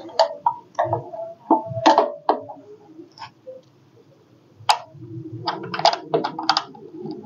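Sharp clicks and light knocks of hand work as a headlight is fitted onto a power tiller: a few spaced clicks, a quieter stretch, then a quick run of clicks near the end.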